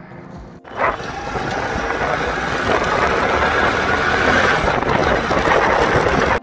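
A 70cc motorcycle engine running while riding, mixed with wind rushing over the microphone; it starts abruptly under a second in, and the engine note rises slightly a few seconds later.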